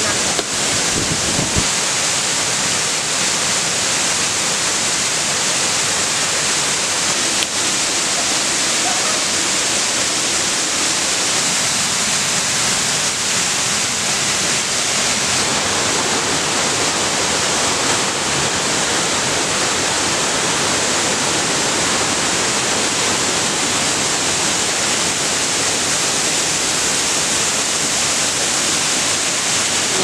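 A large curtain waterfall pouring steadily: an even, unbroken rush of falling water.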